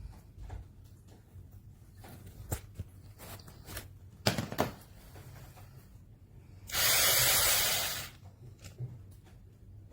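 Handling clicks and knocks, then an 8V cordless drill running in one short burst of about a second and a half, a little past halfway through.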